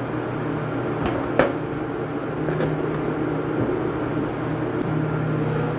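Steady electric motor hum, with a low drone and overtones, filling the room. A light tap sounds about a second and a half in.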